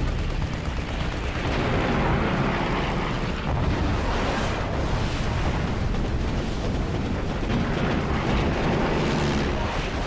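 Dense battle sound effects: shipboard anti-aircraft guns firing continuously, mixed with explosions, in one unbroken loud din.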